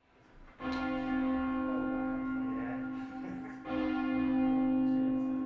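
A heavy church bell from a ring of twelve cast in 1956 by Mears and Stainbank, struck twice about three seconds apart. Each stroke rings on with a steady, bright tone over a deep hum.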